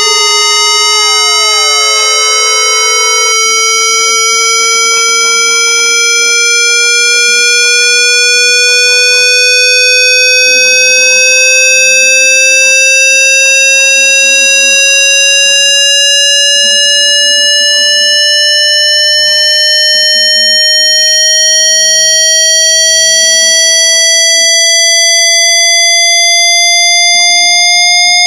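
A loud, steady synthesized chiptune tone, buzzy with many overtones, rising slowly and evenly in pitch like a test-tone sweep. Faint swooping tones sound beneath it for the first three seconds or so.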